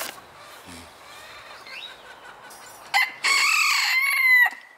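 A rooster crowing once: a single crow of about a second and a half, starting about three seconds in.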